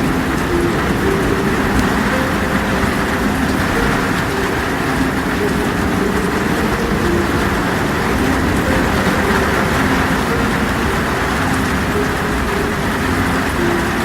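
Heavy rain pouring steadily, an even rush that stays level throughout, with short, faint low tones coming and going beneath it.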